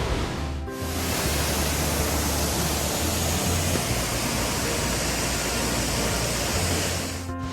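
Steady rushing roar of the Neidong waterfall in full flow, heard close by. It drops out briefly about a second in and again near the end, with faint music underneath.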